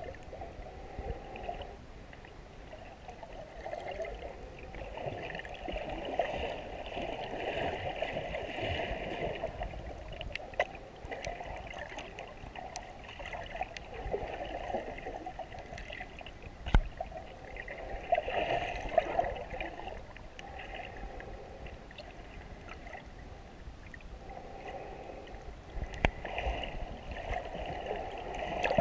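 Muffled water noise heard underwater, swelling and fading every few seconds, with a few sharp clicks.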